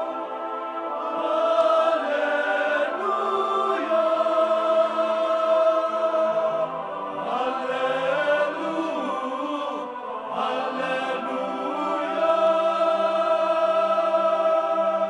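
Male choir singing long held chords in harmony, with some voices sliding between notes.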